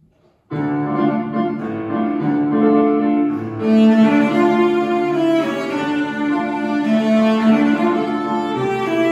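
Cello and digital piano start playing together about half a second in: a bowed cello melody over piano accompaniment, with the sound growing fuller and brighter a few seconds later.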